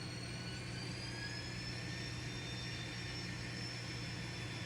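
N scale model locomotive running along the track: a thin high motor whine that rises slightly in pitch about a second in as it speeds up, over a steady low hum.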